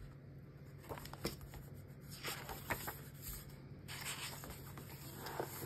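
Pages of a hardcover picture book being turned and smoothed by hand: faint paper rustles and several soft taps.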